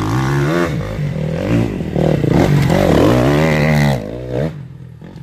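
Enduro motorcycle engine revving hard, its pitch repeatedly climbing and dropping back as the throttle opens and closes. It is loudest just before the sound falls off sharply about four seconds in.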